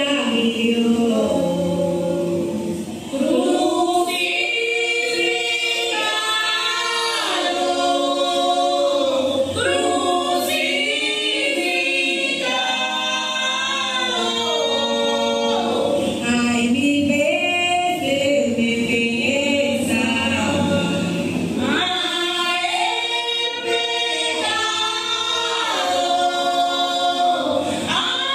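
A group of voices singing an Afro-Colombian song together in phrases, unaccompanied, with no instruments heard.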